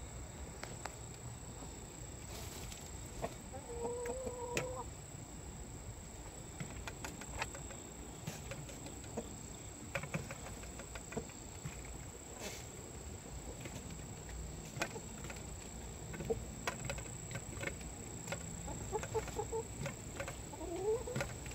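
Hens clucking while pecking at frozen feed in a metal bowl, with scattered sharp taps. One drawn-out call comes about four seconds in, and a run of short calls near the end.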